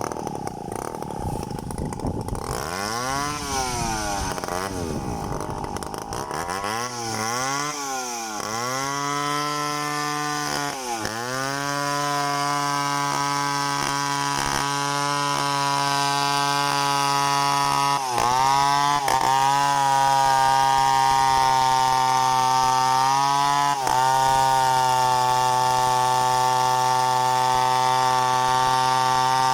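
Chainsaw engine running at high speed, its pitch dropping and recovering several times in the first ten seconds, then holding mostly steady with two brief dips later.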